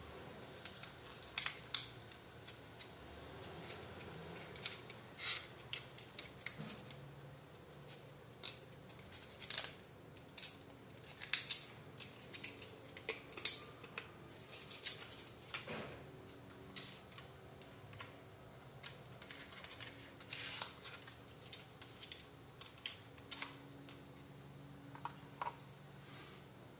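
Hand work on a laptop during a RAM upgrade: dozens of short, irregular light clicks and taps of small plastic and metal parts, over a faint steady hum.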